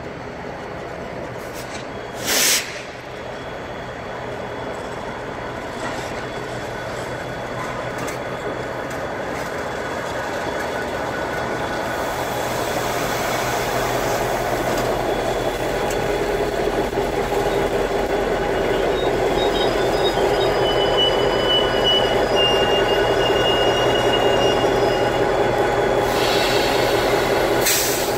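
BNSF diesel-electric freight locomotive approaching and rolling slowly past close by, its engine growing steadily louder. There is a brief loud burst about two and a half seconds in, and a thin high squeal later on.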